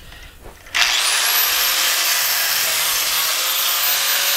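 An electric angle grinder with a cutoff wheel switches on about a second in. Its whine climbs quickly to full speed and then runs steadily as it cuts through the aluminum end windings of an AC fan motor's stator.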